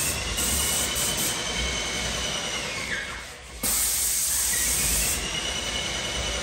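Paint spray gun spraying paint onto drywall: a loud, steady hiss with a whine that falls away as each pass ends. There are two long passes, with a short break about halfway.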